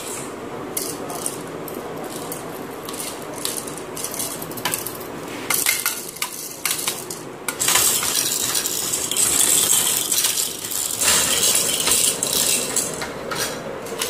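Hard-plastic rattle toys hanging from a baby play gym being shaken and knocked by hand: repeated clicks and clacks, with stretches of steady rattling.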